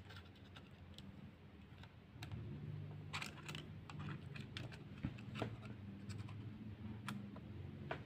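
Faint, irregular small clicks and taps of soldering tools against the metal pins and circuit board of a laptop charging port, a quick cluster of them a few seconds in, over a low steady hum.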